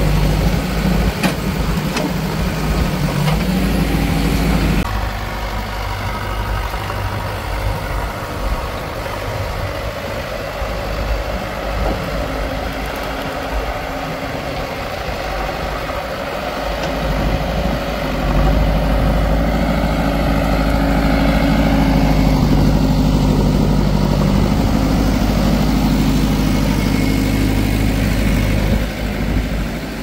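Diesel engines of a backhoe loader and farm tractors running steadily at idle. The sound changes suddenly about five seconds in and grows louder from about eighteen seconds.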